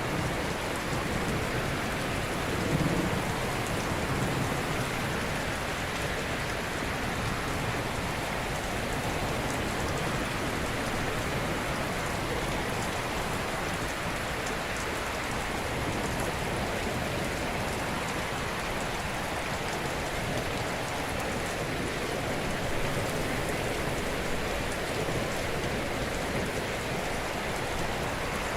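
Ocean surf washing steadily in a continuous hiss, with no single wave standing out, and a brief low swell of surge about three seconds in.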